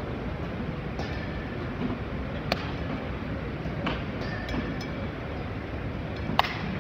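Several sharp smacks of softballs, caught in gloves and striking the hardwood, ringing in a big gymnasium, the loudest about two and a half seconds in and near the end, over steady background noise.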